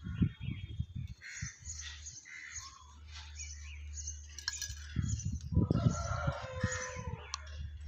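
Birds calling in the background, then a rooster crowing for about a second and a half, starting about five and a half seconds in, over a steady low hum.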